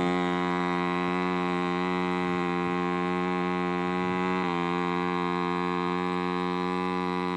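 Two-stroke chainsaw engine running steadily, with a brief dip in pitch about four and a half seconds in.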